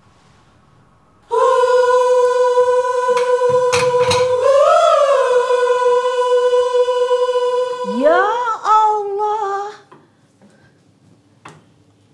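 A voice singing one long, held high note that starts about a second in, wavers briefly in the middle, and ends with a gliding, falling run before stopping shortly before the end. A few sharp knocks sound under it early on.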